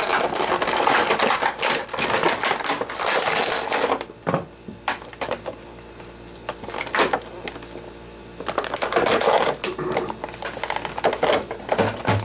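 Plastic and cardboard packaging rustling and crinkling as it is handled, with many sharp clicks. Busy for about four seconds, quieter with scattered clicks for the next four, then busy again.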